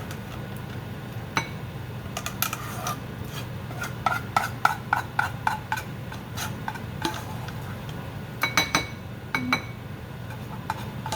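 A spoon scraping and clinking against bowls while mashed potatoes are spooned in. About four seconds in comes a quick run of about eight ringing taps, and a few more sharp clinks follow near the end.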